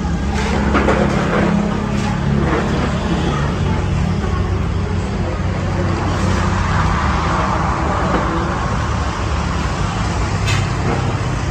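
Steady low hum of road traffic, with a few short taps as a metal spatula cuts a roti on the counter.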